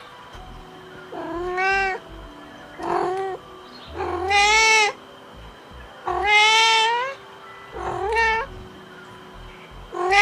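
A cat meowing: five drawn-out meows one to two seconds apart, each bending up and down in pitch, with another loud meow starting right at the end.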